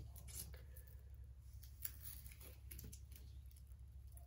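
Near silence over a steady low hum, with a few faint, short rustles and taps of hands brushing over the plastic protective film on a diamond painting canvas.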